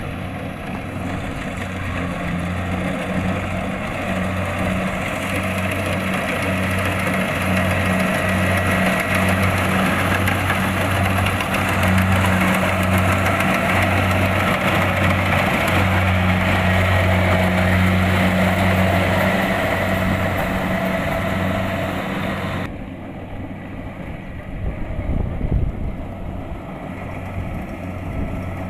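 Kubota DC-70 Plus combine harvester's diesel engine running steadily at working speed, with the whirring and rattling of its cutting and threshing machinery. About 23 seconds in the sound changes abruptly to a quieter, duller engine sound with gusty low rumble.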